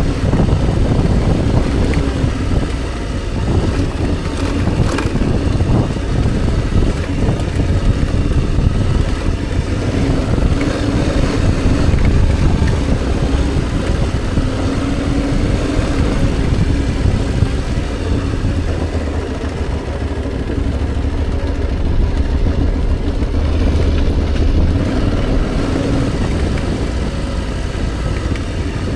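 Motorcycle engine running continuously at low, varying revs, with a heavy low rumble of wind and riding noise on the microphone.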